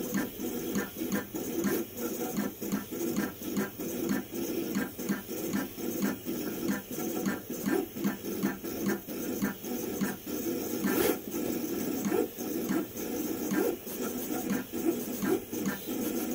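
Vevor 28-inch vinyl cutter plotting a detailed drawing at speed: its carriage and paper-feed motors whir in rapid short moves, about three a second, as the head darts back and forth across the paper.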